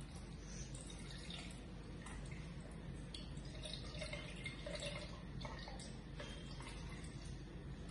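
Milk pouring and dripping from a small cup into a plastic measuring jug, faint, over a steady low hum.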